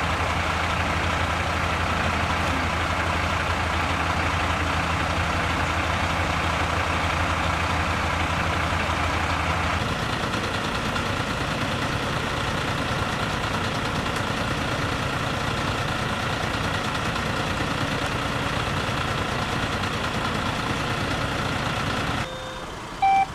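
Heavy truck engine running steadily. About ten seconds in its low note changes, and near the end the engine sound cuts off abruptly.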